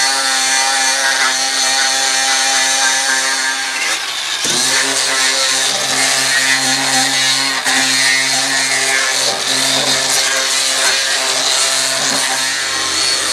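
DeWalt cordless grinder with an 80-grit sanding wheel running steadily and sanding wood, with a high motor whine over the scrubbing of the abrasive. About four seconds in it drops briefly and then spins back up.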